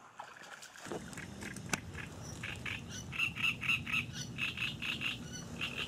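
Frog calling from the reed bed: a rapid series of short, evenly repeated croaks, about six a second, starting a couple of seconds in and briefly pausing partway. A low steady rumble and a single sharp click lie underneath.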